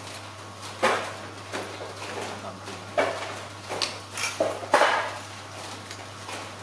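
Dishes and utensils clinking and knocking during a meal: five or six short, separate clatters about a second apart, over a steady low hum.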